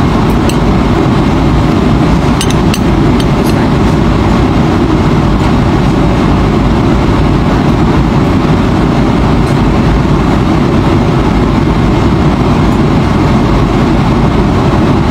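Steady cabin noise of an airliner in flight, the engines and airflow making a loud, even rush. A fork clinks lightly on the dishes about half a second in and a few times around three seconds in.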